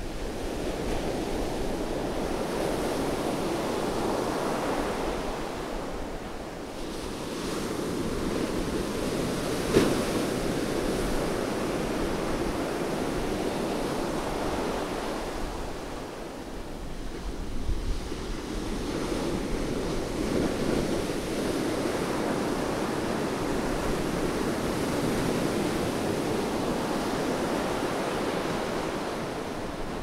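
Rough sea surf breaking and washing up a sandy beach: a continuous wash that swells and eases, dipping briefly twice. One short sharp click about ten seconds in.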